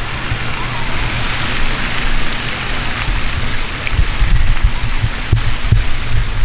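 Steady rushing hiss of a garden fountain's water jet splashing into a pond, with wind buffeting the microphone in irregular low gusts.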